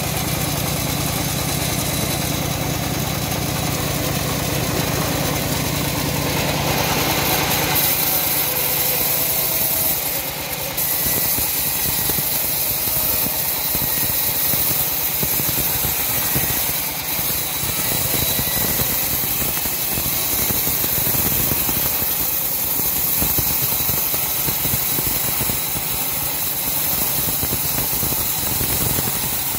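Homemade band sawmill running with its band blade ripping lengthwise through a log. About eight seconds in, the steady machine hum gives way to a rougher, fast-fluttering cutting sound with a constant high hiss.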